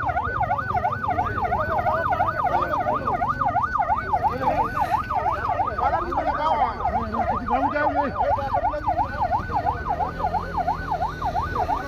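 Emergency vehicle siren in a fast yelp, its pitch sweeping up and down about three to four times a second, over a low rumble.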